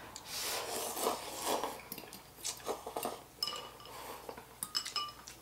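Instant noodles being slurped, then metal utensils clinking and scraping against the bowls several times in the second half.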